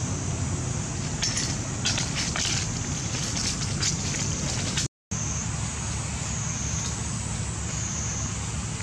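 Outdoor background noise: a steady low rumble under a constant high-pitched whine, with a few faint crackles between about one and four seconds in and a brief cut to silence near the middle.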